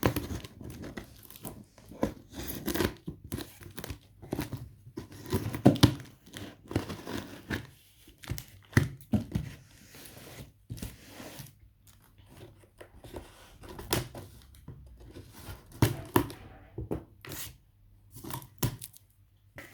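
A cardboard parcel and its packaging being torn and crumpled open by hand: irregular rips, crinkles and scattered knocks.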